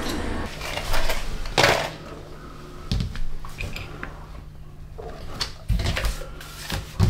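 Scattered sharp clicks and knocks of a small brass floor-mounted door stop and its screw being handled and set down on a ceramic tile floor over a freshly drilled hole, with a faint steady low hum underneath.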